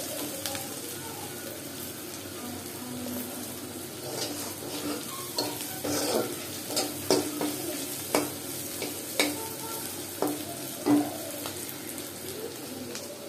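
Sliced onions and green chilies sizzling in oil in a black karahi, stirred with a steel spatula. About four seconds in, the spatula starts knocking and scraping against the pan several times, the loudest strike near the end.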